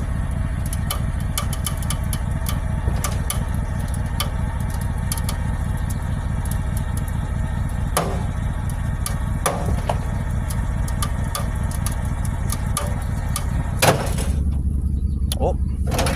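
Engine idling steadily under repeated metallic clicks and knocks as a steel pry bar levers a kinked wheel outward, with one louder clank near the end as the wheel gives and the bar bends.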